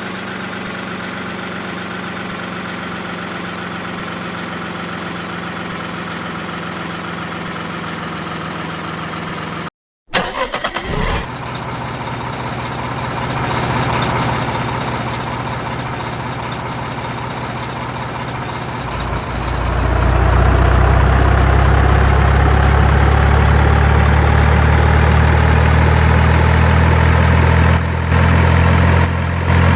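Heavy excavator engine running at a steady idle. It cuts out briefly about a third of the way through, resumes, then grows louder and deeper about two-thirds of the way in as it revs up under load.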